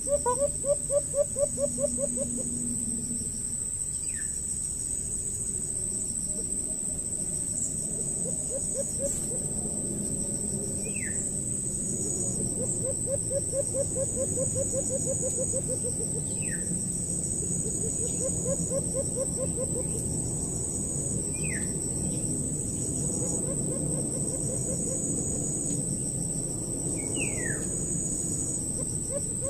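Woodland insects and birds: a steady high insect drone, runs of rapid low pulsing calls that come and go, and a short descending whistled bird call about every five seconds.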